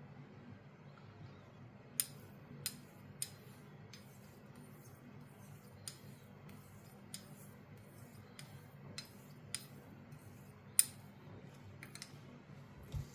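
Sheffield straight razor being stroked on a hone: a faint scraping hiss with each pass and a sharp click each time the blade is flipped over on its spine, about a dozen times, irregularly half a second to a second apart.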